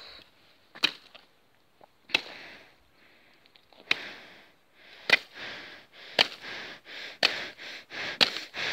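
A thin sword slashing repeatedly through weeds and leafy plants: about seven sharp swishing strikes, each followed by rustling leaves, the strikes coming faster in the second half.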